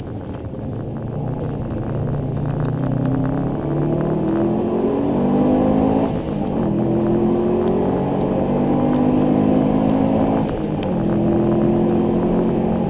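2002 Subaru Impreza WRX STI's turbocharged flat-four engine heard from inside the cabin, accelerating through the gears. The engine note climbs, drops sharply at a gear change about six seconds in, climbs again and drops at a second shift near the ten-second mark, then pulls on.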